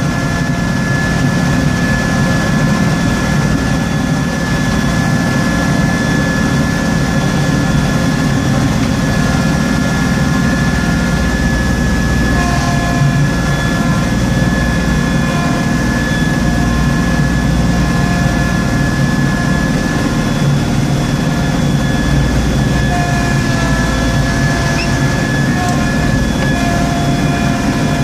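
Tractor engine running steadily under load, driving a front-mounted snowblower as it throws snow, heard from inside the cab. A steady whine sits over the engine's rumble.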